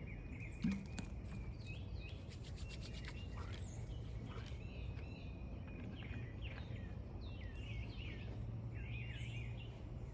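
Hand drill burn-in: palms spinning a dogfennel spindle back and forth, rubbing as its tip grinds into a fresh divot in a water oak fireboard. Birds chirp over it again and again.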